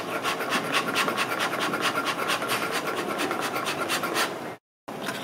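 Small homemade lung-powered air engine running fast: a rapid, even rasping rattle, many clicks a second, from its crank, piston rod and flywheel turning on a cardboard frame as breath drives the paper-and-foil ball piston in its plastic tube. It breaks off briefly near the end and comes back quieter.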